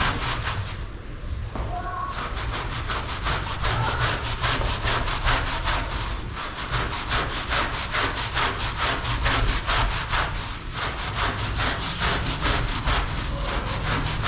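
Rhythmic back-and-forth scrubbing of a rug, about four or five rasping strokes a second, with a brief pause about a second in.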